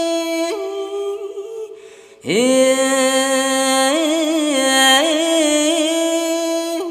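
Khmer smot chanting by a Buddhist monk's solo voice, unaccompanied. Long held notes with wavering ornaments; the voice fades to a breath about two seconds in, then starts a new, lower note with an upward slide and holds it.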